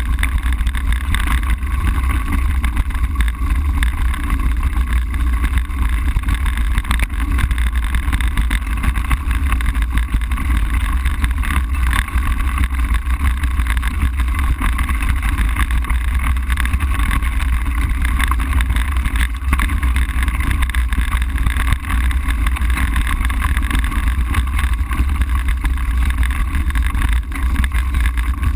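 Mountain bike rolling over a loose gravel track: a steady, loud rumble and rattle of tyres on stones and frame vibration, picked up by a mounted action camera that rides along with it.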